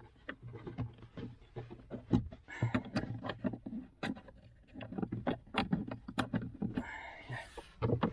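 Irregular clicks, taps and knocks of hard plastic trim and tools being handled in a car interior as the glove box is refitted.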